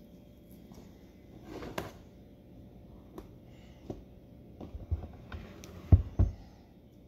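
A paper cremation float is handled on a countertop while a cloth wipes its rim. There is a short rubbing swish about two seconds in, then scattered light knocks, and two heavy thumps close together near the end.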